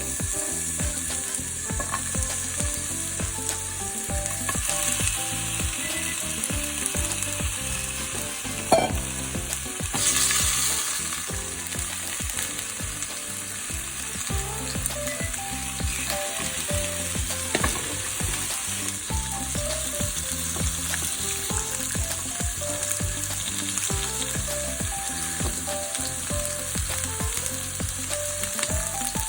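Food sizzling steadily in a hot frying pan as it is stir-fried, swelling briefly about ten seconds in, with a couple of sharp knocks of a utensil against the pan.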